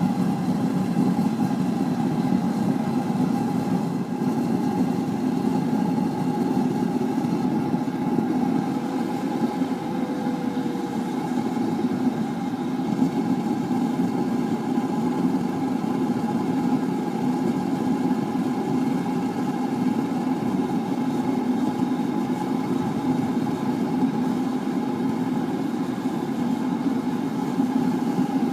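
Forced-air propane burner firing a furnace: a steady roar of burning gas and blower, with a constant higher whine running through it.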